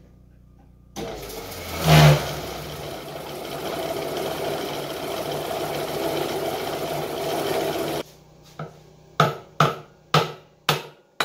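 Twin-cylinder air compressor switched on and struggling, with a loud surge about two seconds in, then running with a rough drone for several seconds before cutting off suddenly. The pump runs badly and its motor can barely start it. Near the end come five sharp knocks, each dying away quickly.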